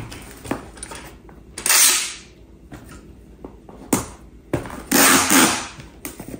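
Packing tape pulled off a handheld tape dispenser twice, each pull a noisy rasp lasting under a second, with a sharp click about four seconds in.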